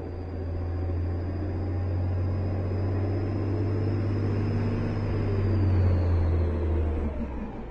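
Garbage truck engine running, a deep steady rumble that swells to its loudest about six seconds in and then drops away.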